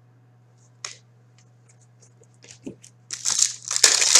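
Hockey trading cards handled by hand: a single click, a few light ticks, then a loud crinkly rustle and tear in the last second or so, typical of a foil card pack being torn open and its cards fanned out.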